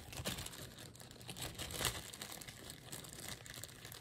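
Plastic zip-top bag crinkling and rustling faintly as brooches are handled and taken out of it, with small clicks of jewelry and a slightly louder rustle about two seconds in.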